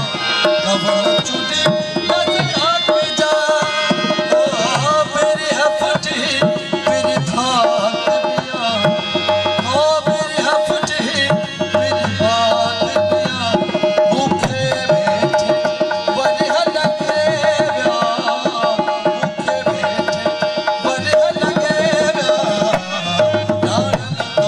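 Live folk music: a dholak hand drum played in a fast, steady rhythm, under a voice singing ornamented, sliding melodic lines over a held drone note.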